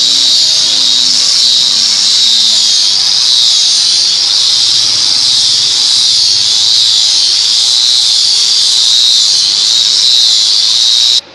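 A loud, steady, high-pitched squealing whine that wavers slightly, with a few faint falling tones at the start. It cuts off abruptly near the end.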